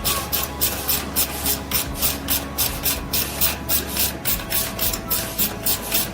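Rapid rhythmic rasping strokes, about four a second, of something being scraped back and forth by hand, over a steady low hum.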